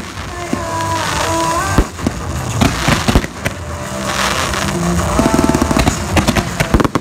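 Aerial fireworks going off in a rapid string of bangs and crackles, heard over music.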